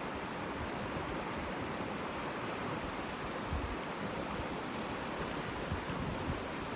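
Steady rushing outdoor background noise, with a few soft low thumps in the second half.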